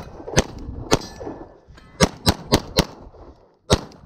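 9mm Glock 34 pistol fired in quick strings: about eight shots, a pair near the start, then after a pause a fast string of four and a last shot near the end. A faint metallic ring hangs after some shots.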